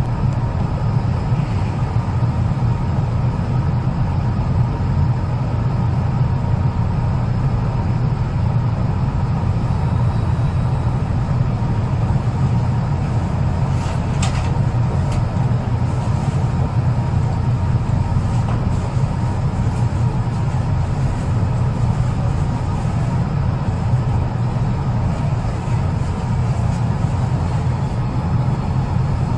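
Steady low rumble and hum inside an electric commuter train as it pulls away from a station and gathers speed.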